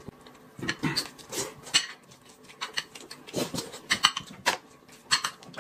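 Close-up eating sounds: wet chewing and lip-smacking from a mouthful of food, with light chopstick clicks against a plate. The sounds come as irregular short smacks.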